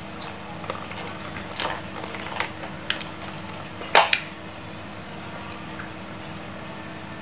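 Scattered light clicks and taps from an analog multimeter and its test-lead plugs being handled, with one sharper click about four seconds in, over a faint steady hum.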